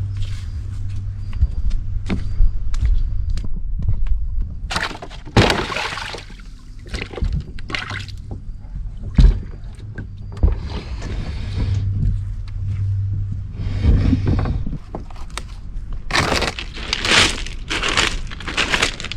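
Water splashing and sloshing in irregular bursts over a steady low hum.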